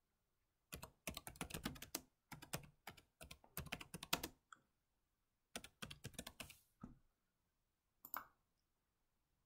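Typing on a computer keyboard: a quick run of keystrokes lasting about three and a half seconds, a pause, a second shorter run, then a brief last burst near the end.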